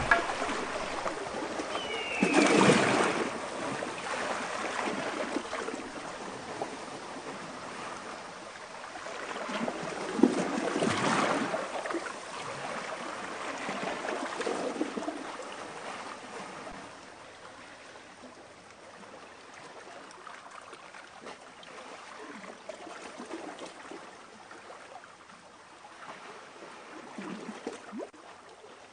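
Background ambience of moving water that rises and falls in slow swells, loudest about two and eleven seconds in, and gradually fades toward the end.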